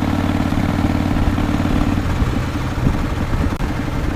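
2005 Harley-Davidson CVO Fat Boy's V-twin engine running while riding at road speed. The even rumble turns rougher and uneven about two seconds in.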